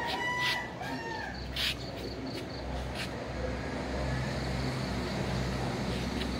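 A rooster crowing once at the start, a pitched call of about a second that trails off, over a low steady rumble.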